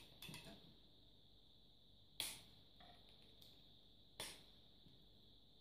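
Plastic Apidea frame parts snapping together as the side bars are clipped onto the top bar: several short, sharp plastic clicks, the loudest about two seconds in and another about four seconds in.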